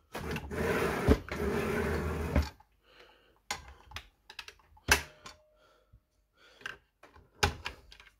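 Ferrex sliding mitre saw being worked by hand: a rough scraping noise for about two and a half seconds, then a few separate clicks and knocks.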